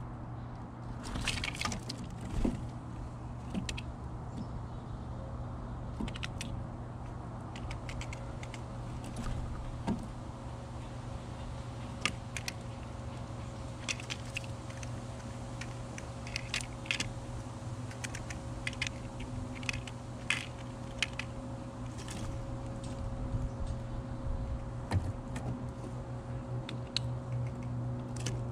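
Irregular light clicks and taps of a Steller's jay pecking at seed and peanuts on a wooden platform feeder, over a steady low background hum.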